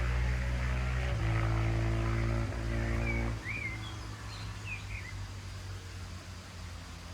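KTM 690 SMC-R's single-cylinder engine, through a LeoVince Nero slip-on exhaust, running at a steady pitch with a couple of small steps. It cuts off suddenly about three and a half seconds in, leaving a few bird chirps over quiet outdoor background.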